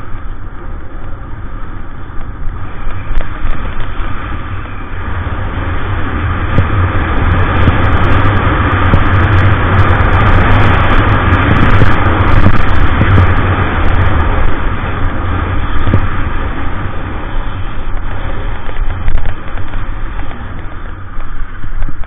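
Wind rushing over an action camera's built-in microphone and skis hissing over packed snow during a fast downhill run. The rumble builds a few seconds in, is loudest in the middle, then eases a little.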